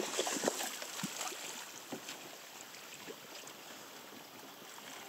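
Steady rush of river water around an inflatable raft, with wind on the microphone, and a few faint knocks and splashes in the first two seconds.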